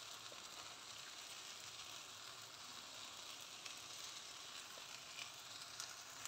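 Poha sizzling faintly and steadily in a hot steel kadhai, with a few light clicks of a steel spatula against the pan near the end as it is stirred.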